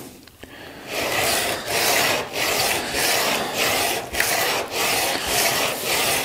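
Back of a steel wood chisel rubbed back and forth on 100-grit sandpaper on a flat board, in a steady run of strokes starting about a second in. The chisel's back is being flattened and its protective coating ground off.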